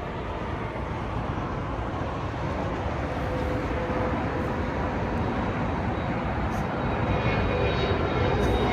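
Jet airliner approaching, its engine noise a steady rush that grows gradually louder, with a thin whine coming in near the end.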